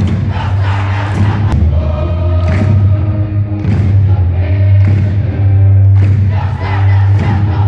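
Loud music with singing voices over a heavy, steady bass.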